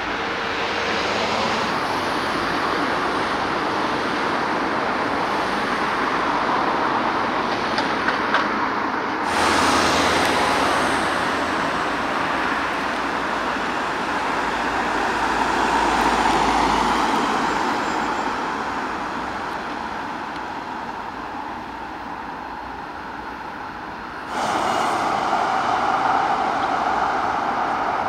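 Steady rumble of vehicle engines and traffic, changing abruptly twice.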